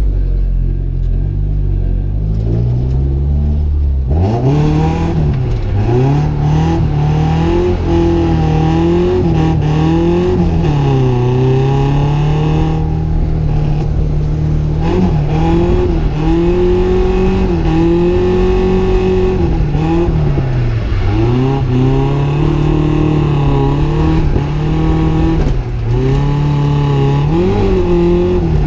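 Nissan 240SX drift car's engine heard from inside the cabin: running low and steady for the first few seconds, then revving up about four seconds in and rising and falling over and over as the car is driven hard on track.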